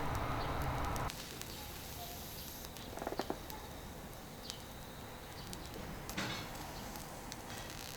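Charcoal fire under an iron griddle giving faint scattered crackles and ticks, with a short flurry of ticks about three seconds in. A steady low rumble stops abruptly about a second in.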